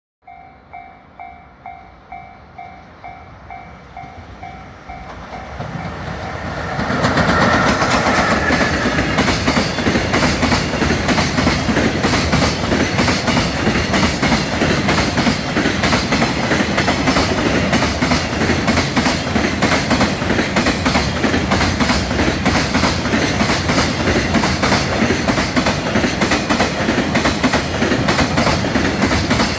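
A Japanese level-crossing alarm rings in a quick two-tone ding about twice a second. About six seconds in, a freight train hauled by an EF66 electric locomotive arrives and drowns it out. The train then passes steadily and loudly, with the wagons' wheels clacking over the rail joints.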